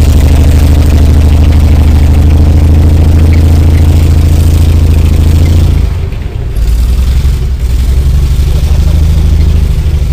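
Tracked tank driving and turning, its engine running loud and steady. About six seconds in, the engine note drops and gets quieter.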